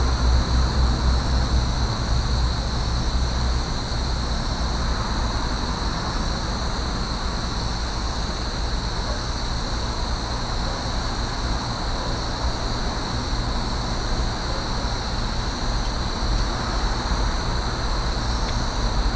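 Steady outdoor background noise: a low, even rumble of the kind distant traffic makes, with a steady high-pitched hiss above it.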